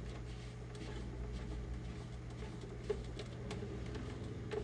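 Paper towel rubbing and wiping over a plastic stormtrooper armor piece, a soft scratchy scrubbing as excess weathering wash is wiped off around the seams, with a few light clicks from the plastic being handled. A steady low hum runs underneath.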